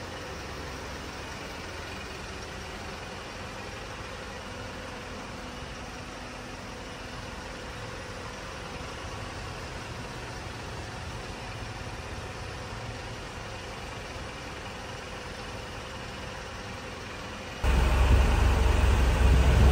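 Light truck's diesel engine idling, heard from inside the cab as a steady, even hum with a faint constant tone. Near the end it cuts abruptly to a much louder, deeper rumble of the idling truck outside.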